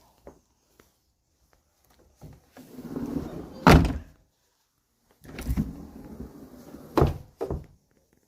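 Sliding window sash rumbling along its track and banging into the frame with a hard thump, twice, followed by a lighter knock.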